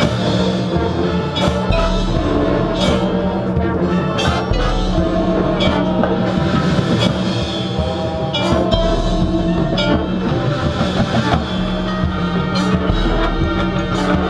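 Marching band playing its field show: held chords over drum hits.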